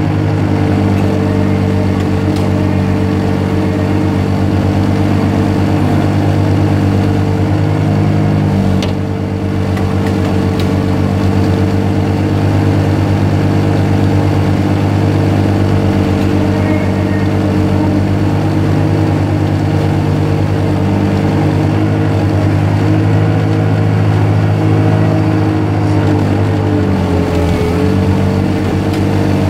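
Zamboni ice resurfacer's engine running steadily as the machine drives over the ice. It dips briefly about nine seconds in, and its pitch sags slightly near the end.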